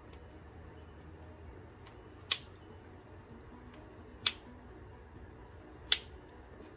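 Flat-iron hair straightener clicking: three sharp clicks spaced about two seconds apart.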